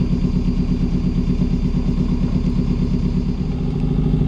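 Hire cruiser's inboard engine running steadily under way, heard from on board, with a slight change in its tone about three and a half seconds in.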